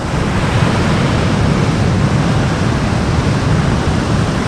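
Steady rush of surf and wind, with a heavy low rumble.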